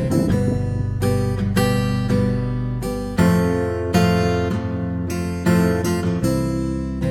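Background music: acoustic guitar strumming and picking chords, with notes struck about twice a second.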